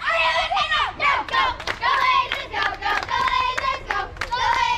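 A group of young girls chanting a cheer in unison, sung in high voices and punctuated by rhythmic hand claps, in the manner of a softball dugout cheer.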